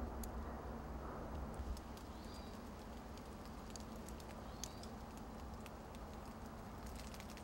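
Faint outdoor ambience: a steady low rumble with two short, high chirps from a small bird, and scattered light clicks that gather near the end.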